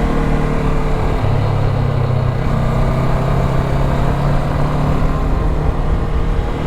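Motorcycle engine running steadily with a low rumble, its note shifting about a second in.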